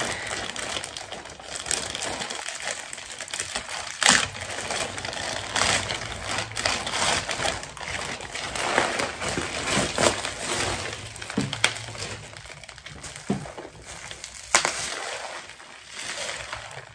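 Plastic courier bag being torn open and crinkled by hand, then a bubble-wrapped parcel rustling as it is pulled out, with many sharp crackles and tearing snaps.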